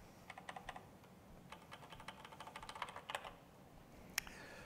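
Faint typing on a computer keyboard: quick runs of key clicks with short pauses between them, and one sharper click near the end.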